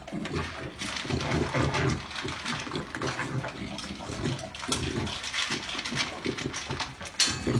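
A puppy eating dry kibble from a bowl: busy, irregular crunching and chewing.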